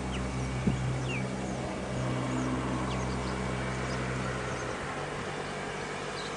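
A motor engine hums steadily at an even pitch and stops about three-quarters of the way through. Birds chirp faintly over it.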